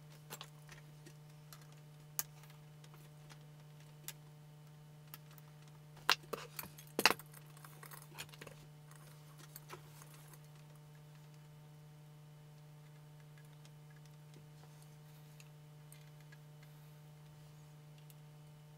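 Soldering tools being picked up and set down on a workbench: scattered light clicks and clinks, with a cluster of sharper knocks about six to seven seconds in, over a faint steady hum.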